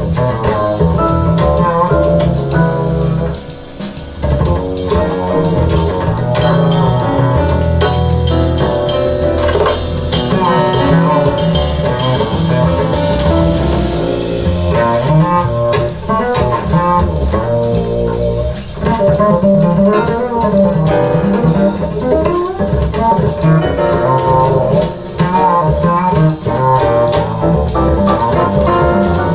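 Recorded music with guitar, bass and drums, played back through a pair of floor-standing hi-fi loudspeakers in a demonstration room.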